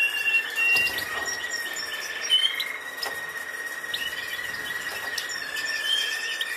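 Small cage birds chirping, short high tweets and whistles over a steady high-pitched whine that runs throughout.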